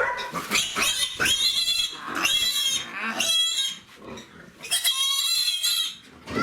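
Pigs squealing: a quick run of high-pitched squeals, a pause of about a second, then one longer squeal.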